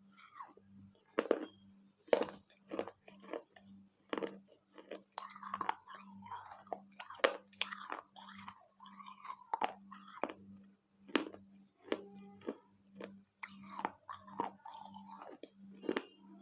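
Close-up crunching and chewing of baked clay pieces from a small clay pot and saucer, sharp irregular bites with chewing in between.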